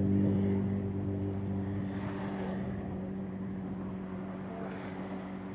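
A steady low motor or engine hum that slowly fades, with light background noise.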